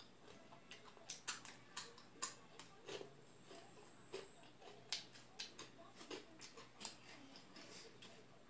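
Close-miked chewing of panipuri (puchka): irregular sharp crunches and wet mouth clicks, a few a second, the loudest a little over a second and about two seconds in.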